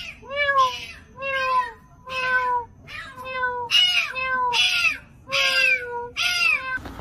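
Kitten meowing over and over, about ten short calls in a row, each rising and then falling in pitch.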